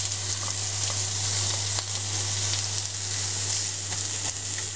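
Diced red onion sizzling in hot olive oil in a nonstick frying pan, a steady hiss, with a few light taps of a spatula stirring it.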